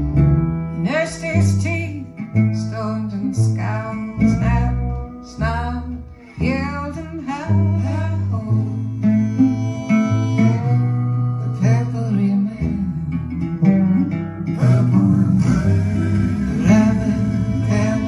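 A song with plucked guitar over a deep bass line, with a singing voice.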